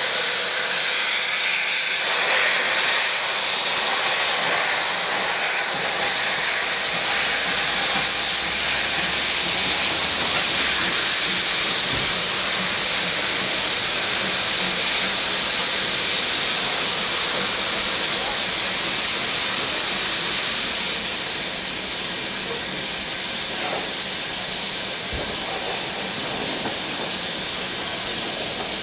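Steam locomotive letting off steam: a loud, steady hiss that eases off about two-thirds of the way through as the steam clears.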